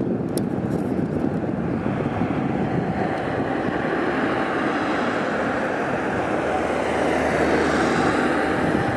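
Street traffic: a steady noise of cars driving by, swelling slightly near the end as a van passes close.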